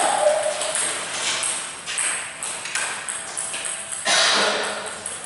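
Table tennis ball clicking off the table and the players' paddles in a practice rally, a few hits a second. A louder rushing noise breaks in about four seconds in.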